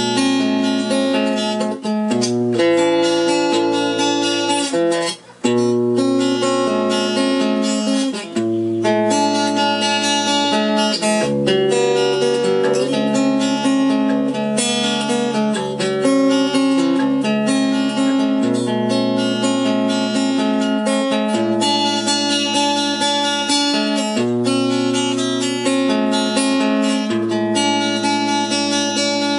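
Acoustic guitar played through the freshly repaired Ciclotron Max Prime H-1400I amplifier head as a test, chords strummed and let ring, with a short break about five seconds in.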